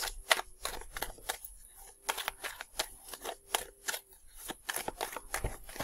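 A tarot deck being shuffled by hand: a run of quick, irregular card clicks.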